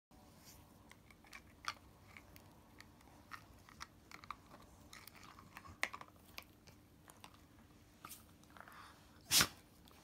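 Akita puppies gnawing and chewing on a dried chew stick, with irregular small crunches and clicks of teeth on the stick. About nine seconds in comes a single loud knock, the loudest sound here.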